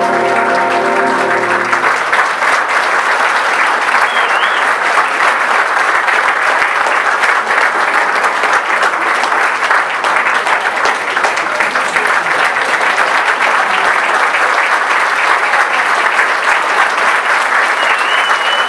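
A concert band's final held chord ends about two seconds in, giving way to steady audience applause, with a couple of short whistles near four seconds in and near the end.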